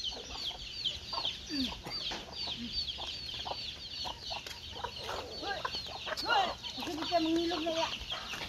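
Free-ranging chickens clucking, with a continuous run of short high peeps, about three a second, and scattered lower calls, one drawn out about seven seconds in.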